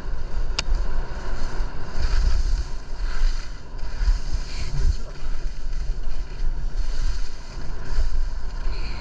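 Wind buffeting the camera microphone during a downhill ski run, with an uneven rumble and the hiss of skis sliding over the snow. A short click comes just under a second in.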